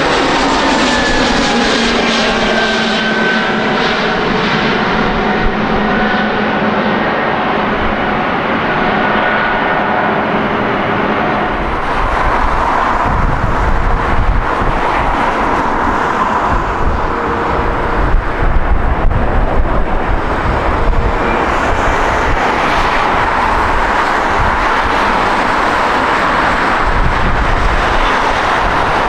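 A jet airliner's engines passing close, their whine falling in pitch as it goes by. About twelve seconds in, a deep jet rumble builds, with uneven crackling peaks a few seconds later.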